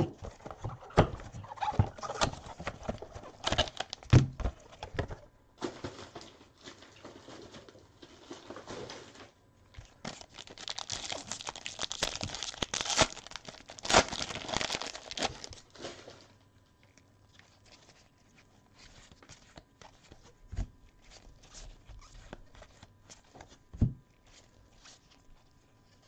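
Trading-card box being handled and opened, with cardboard knocks and rustling. From about ten seconds in comes several seconds of loud crinkling and tearing as the plastic pack wrapper is torn open, followed by a few soft clicks of the cards being handled.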